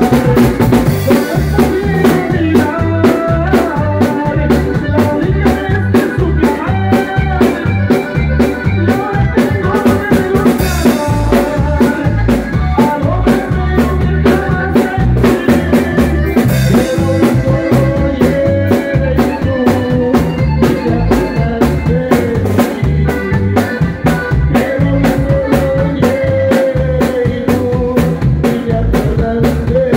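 Live band rehearsing a norteño song: drum kit keeping a steady beat under keyboards, with a sung melody over the top.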